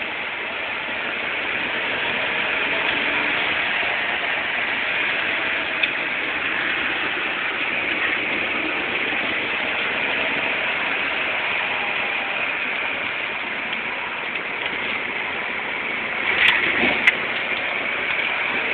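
1977 Porsche 930 Turbo's air-cooled turbocharged flat-six running as the car drives, heard from inside the cabin under a steady hiss of wind and road noise. A few sharp knocks come near the end.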